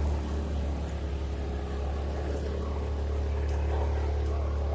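Motor scooter engine running steadily at low speed, an even low hum with no revving.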